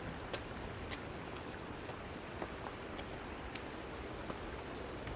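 Footsteps on a dirt and gravel path: short sharp steps about every half second to a second over a steady background hiss.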